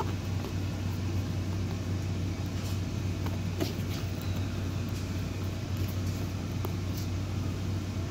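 A steady low hum, with a few faint taps and rustles as a cardboard gift box is turned in the hands.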